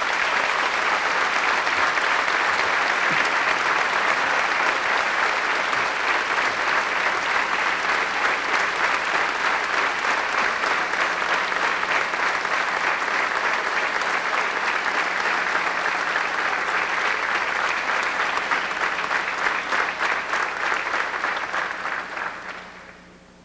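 Theatre audience applauding steadily for about twenty seconds, dying away near the end.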